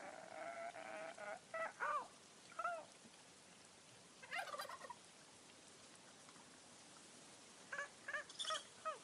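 Turkeys calling over a steady hiss of gentle rain: a drawn-out call at the start, a few short falling calls, a brief burst of calls about halfway, and a quick run of calls near the end.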